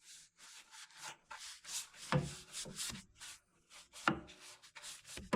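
Hand rubbing strokes on the oak cabinet's wood surface, about three to four a second, with two louder knocks against the wood about two and four seconds in.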